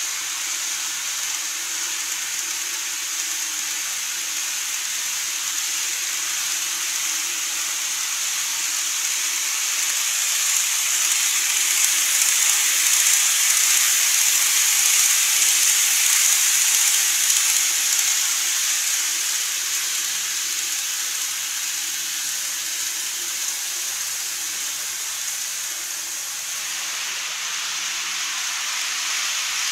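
N-gauge model train running on plastic track: a steady hissing rumble of wheels and motor that grows louder as the train passes close, about 10 to 18 seconds in, then fades back.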